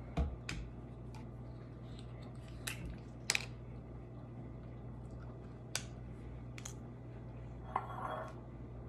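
Plastic screw cap being opened on a bottle of hydrogen peroxide and the bottle handled: a few scattered sharp plastic clicks and ticks, and a brief rustle near the end. A low steady hum runs underneath.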